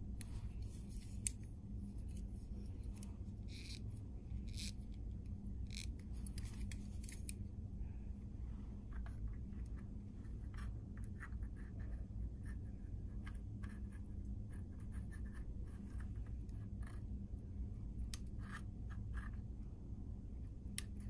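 Steel digital caliper being slid and its jaws clicking and scraping against 3D-printed plastic parts: scattered light clicks and scrapes, one sharper click about a second in, over a steady low hum.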